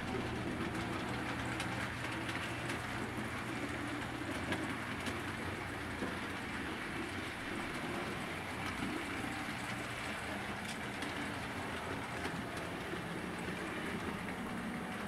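HO scale model train of loaded coal hopper cars rolling along the track: a steady rolling rumble of metal wheels on rail, with faint irregular clicks at the rail joints.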